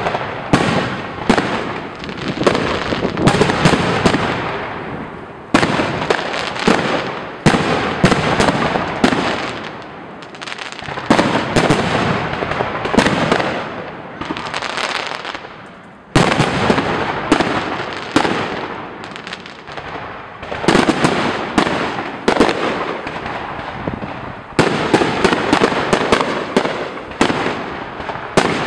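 Aerial firework shells bursting one after another in a fireworks display: many sharp bangs in quick succession over a dense wash of noise, swelling and thinning in waves. A hard bang stands out about sixteen seconds in.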